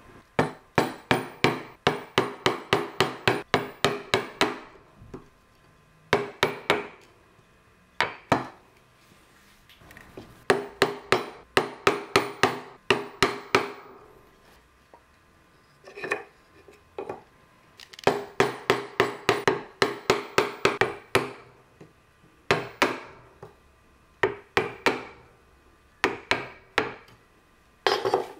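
A hand chisel driven into a wooden workpiece by a mallet, in quick runs of about four strikes a second with short pauses between the runs, chopping out the angled cut of a joint.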